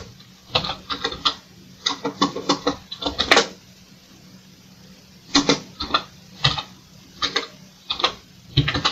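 Computer keyboard keystrokes: groups of quick key clicks separated by short pauses as an entry is typed into a spreadsheet cell.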